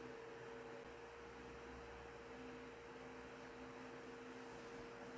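Mainstays 12-inch oscillating table fan running on medium speed: a faint, steady motor hum with a thin held tone, the noise the owner remarks on.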